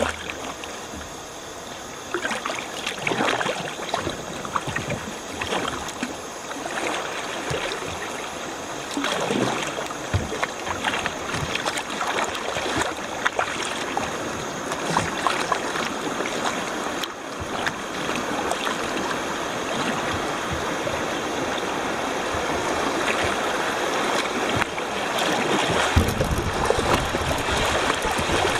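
River water rushing around a kayak in a riffle or small rapid, with scattered splashes of paddle strokes. The water gets louder and fuller near the end.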